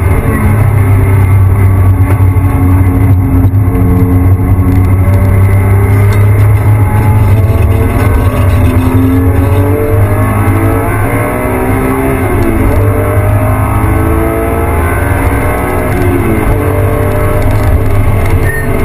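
Porsche 911 GT3 RS flat-six engine heard from inside the cabin at speed on a race track. Its pitch keeps rising and falling as the car accelerates and changes gear. A steady low rumble of road and wind noise runs underneath.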